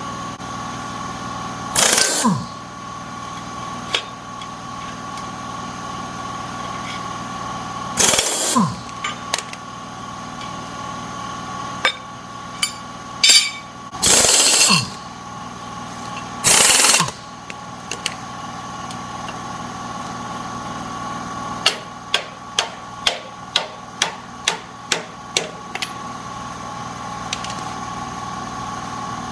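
Pneumatic wrench run in four short bursts, each winding down as it stops, loosening the bolts that hold the worn shares of a tillage machine so they can be changed. Near the end comes a quick run of about ten sharp clicks, and a steady hum runs underneath throughout.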